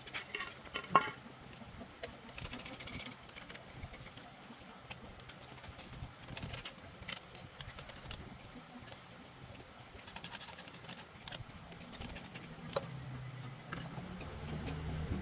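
Scattered light metallic clicks and clinks of small parts and tools being handled while working on a motorcycle engine, with one sharper click about a second in. A low hum builds near the end.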